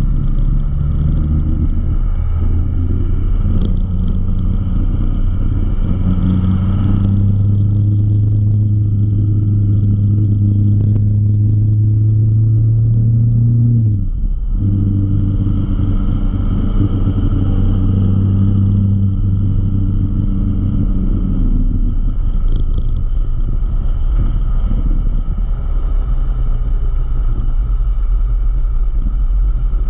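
Motorcycle engine running under way, heard from on board; its note climbs slowly for about fourteen seconds, dips sharply once, then holds steady.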